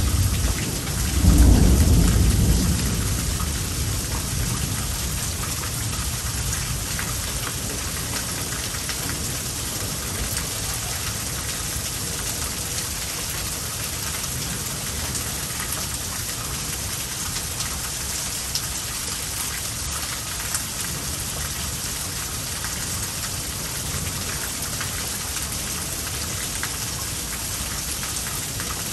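Heavy rain pouring steadily through a thunderstorm. A loud clap of thunder about a second in rumbles away over the next few seconds.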